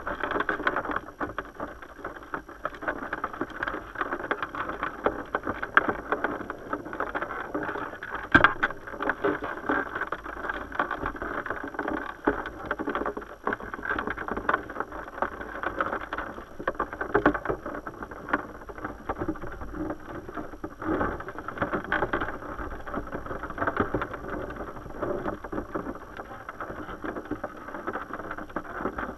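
Muffled rushing of river water heard through a submerged GoPro's waterproof housing, with frequent small clicks and taps and one sharper knock about eight seconds in.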